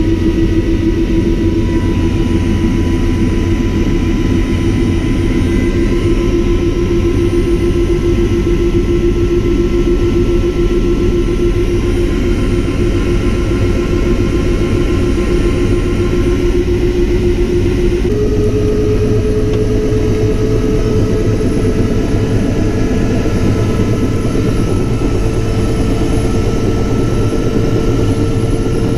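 Bell LongRanger II helicopter's turbine engine and rotor running on the ground, heard from inside the cockpit: a steady whine over a low rumble. The whine rises slowly and then steps up in pitch about 18 seconds in.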